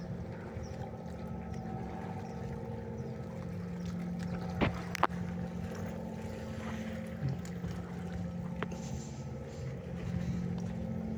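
A boat engine running steadily, a constant low hum, with sharp clicks twice about four and a half to five seconds in and once more later.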